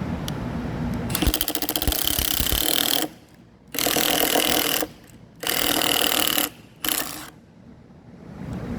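Small cordless impact driver hammering in four bursts, a long one and then two shorter ones and a brief blip. It is driving a puller tool that forces apart a Burndy 600-volt knife connector.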